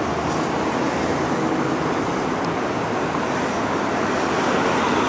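Steady roadside traffic noise: a continuous hiss and rumble of street traffic.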